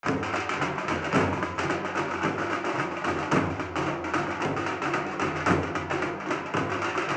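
Dhol drums played in a fast, steady procession rhythm: a rapid run of sharp, cracking strikes over deeper drum beats.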